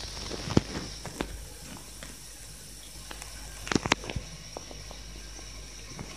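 A cat playing in shallow water in a bathtub: scattered small splashes and taps, with a sharp pair just before the four-second mark, over a steady hiss.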